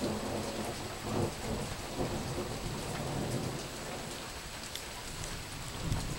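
Steady rain falling, with scattered drops ticking close by, over a low rumble of thunder that swells and fades.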